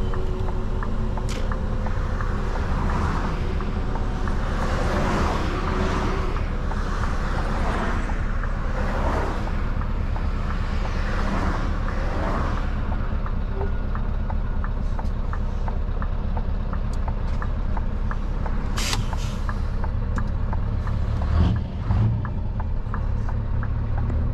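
Scania R620's 16-litre V8 with an open, unsilenced exhaust pipe, running steadily with rising and falling surges of exhaust noise. A brief hiss of air comes about three-quarters of the way through, and a short louder burst follows soon after.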